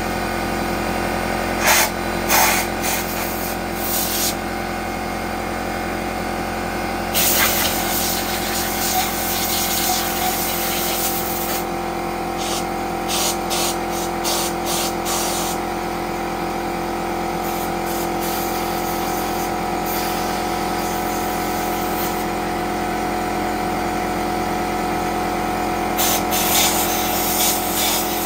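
Compressed-air blow gun hissing in repeated bursts, one of them long, blowing dust out of holes drilled in concrete to clean them for epoxy-set rebar. Under it the motor of a Porter-Cable pancake air compressor runs with a steady hum.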